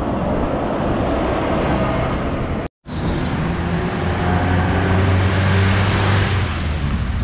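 Road traffic noise heard while riding a bicycle, with a bus running close alongside. After a brief cut-out, a vehicle's low engine hum swells and holds through the second half.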